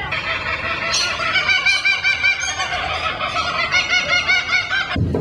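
Laughing kookaburra calling: a long run of rapid, rising-and-falling notes, about five a second, that stops abruptly near the end.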